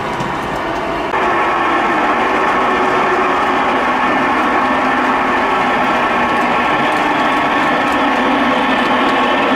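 G-scale model electric locomotive running along the track, starting about a second in. Its motor and gears give a steady, even whirr with several fixed pitches.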